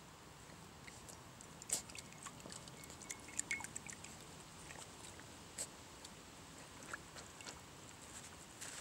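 Papillon puppies lapping and licking water from a glass tumbler: quiet, irregular small laps, splashes and clicks.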